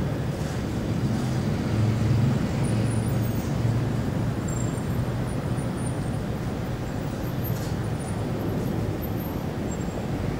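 City traffic ambience: a steady low rumble of road traffic, with a vehicle's engine drone rising a little about two seconds in and fading back.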